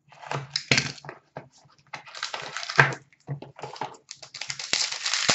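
Upper Deck Chronology hockey card box and pack being opened by hand: irregular crinkling and rustling of cardboard and wrapper with many short clicks, busiest near the end.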